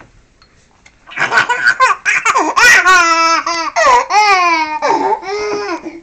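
An 11-month-old baby laughing hard at being tickled: after about a second of quiet, a run of loud, high-pitched squealing laughs that carries on to the end.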